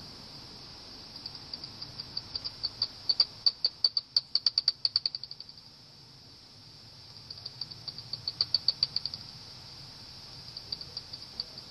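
Common pipistrelle echolocation calls heard through a bat detector: runs of rapid clicks, about ten a second, over a steady hiss. The clicks swell and fade as bats fly past, three times; the first run is the loudest.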